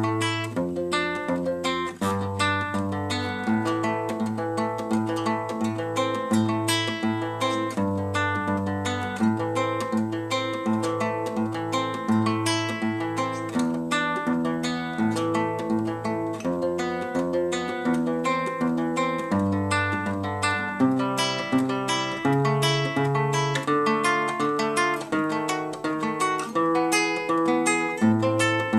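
Solo acoustic guitar playing an instrumental piece: fast plucked and strummed notes over a moving bass line.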